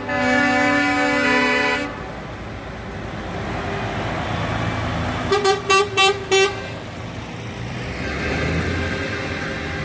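Lorry horns: one long blast that stops about two seconds in, then four quick toots a little past halfway, over the low running of passing lorry engines.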